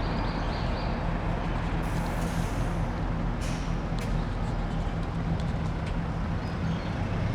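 Hybrid non-step city bus running at a stop with a steady low engine hum. A short hiss comes about two seconds in, and a sharp click about four seconds in.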